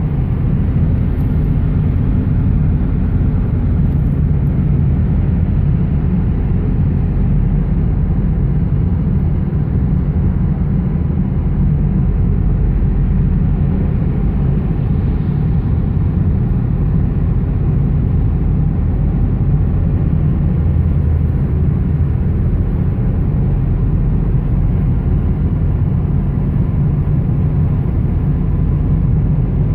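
Steady, low engine and tyre rumble of a car cruising at constant speed on a freeway.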